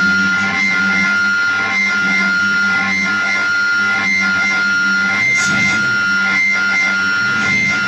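Droning noise music: held steady tones over a low drone, pulsing regularly about twice a second, with sliding tones coming in near the end.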